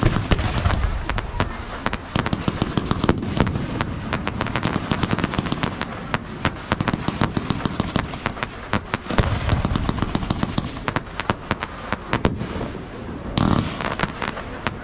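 Fireworks display: dense, rapid crackling and popping of many bursting shells, with deep booms about a second in, around nine seconds in, and again about thirteen seconds in.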